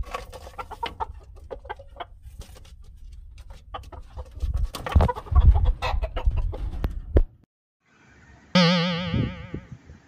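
Rooster clucking among scattered knocks and scrapes, with a heavy low rumble for a few seconds midway. The sound cuts off, and near the end a single loud, wavering call lasts about a second.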